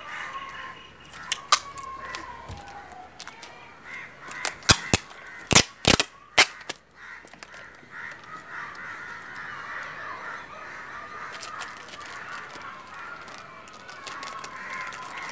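Cardboard shipping box being handled and opened by hand: a string of sharp snaps and taps, loudest about five to six and a half seconds in. Birds call steadily in the background.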